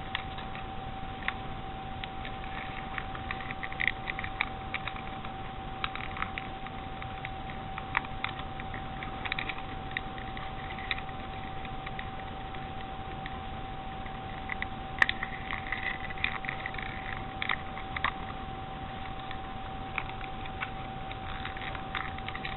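Small plastic parts of an external USB device being pressed and fitted back into the casing by hand: irregular clicks and taps, in small clusters, with one sharper click about fifteen seconds in. A steady faint high hum runs underneath.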